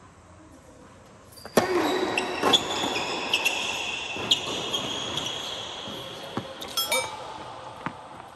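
Tennis rally on an indoor hard court: a racket strikes the ball about a second and a half in, followed by several more sharp hits and bounces over the next five seconds. Bright ringing, chime-like tones sound over the rally.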